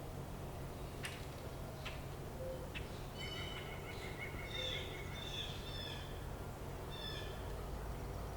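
Small birds chirping: a few short sharp notes in the first three seconds, then a run of high calls for about four seconds, over a steady low background rumble.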